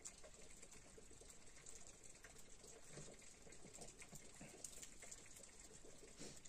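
Near silence with faint, scattered light ticks and pattering.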